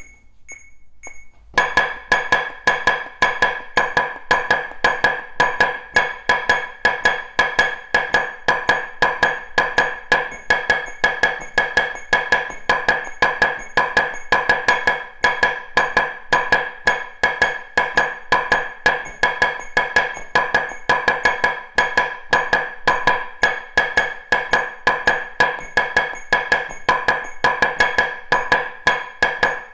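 Wooden drumsticks playing rapid double strokes in triplets on a practice pad, a steady stream of even taps, with a metronome clicking at 110 beats per minute. A few metronome clicks come alone before the playing starts about a second and a half in.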